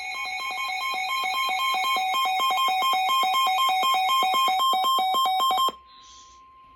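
Electronic emergency-alert warning tone, beeping back and forth between a low and a high pitch about three to four times a second over steady higher tones. It cuts off suddenly near the end, leaving a faint steady tone.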